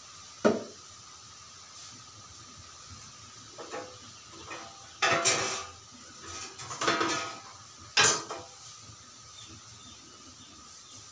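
Metal kitchen vessels and utensils being handled and set down on a counter: a sharp knock about half a second in, then a run of clattering knocks and scrapes from about four to eight and a half seconds, the last a sharp clank. A faint steady hum runs underneath.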